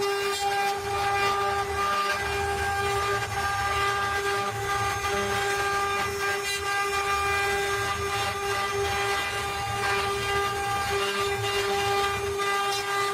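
CNC wood router running: a steady high-pitched spindle whine over an uneven low rumble from the cutting.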